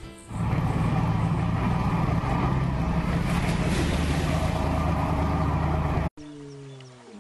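Motorboat engine running steadily under a rush of wind and water as the boat moves along. About six seconds in it cuts off abruptly and a low animal call, falling in pitch, begins.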